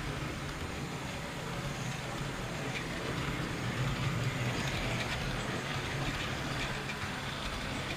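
Electric model train running steadily round the layout, heard close up from a camera riding on one of its wagons: an even rumble of small wheels on the rails with a steady low motor hum.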